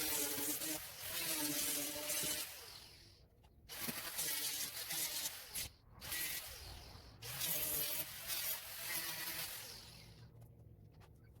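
Electric sander running against weatherboards in three long runs, with a wavering motor hum under a loud hiss, stopping briefly about three and six seconds in and dying away near the end.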